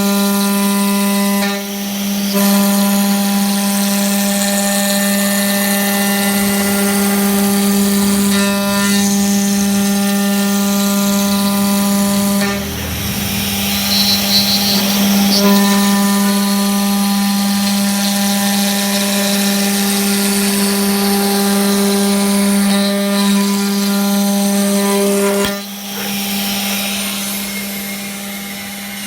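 CNC router spindle running with a steady whine as the bit cuts acrylic sheet. The cutting noise dips and changes briefly three times, about 2, 13 and 26 seconds in.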